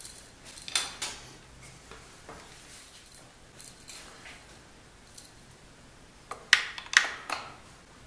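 Small parts being handled on a homemade organ mechanism: the aluminium bearing block of the wooden connecting rod being fitted onto the steel crankshaft. There are a couple of light knocks about a second in and a quick run of sharp metallic clicks near the end.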